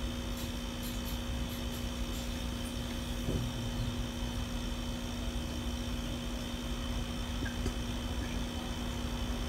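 A steady machine hum with a low rumble and a faint hiss, unchanging throughout.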